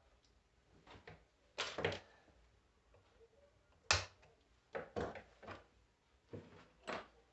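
A string of irregular knocks and clacks from tools and starter-motor parts being handled on a workbench, about eight in all, the loudest a little before and near the middle.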